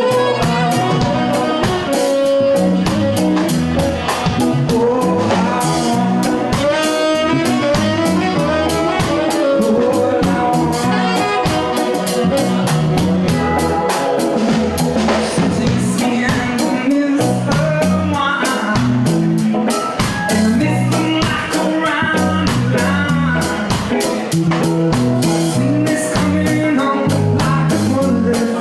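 A live band playing a reggae-style rock number, with the drum kit keeping a steady beat under the instruments.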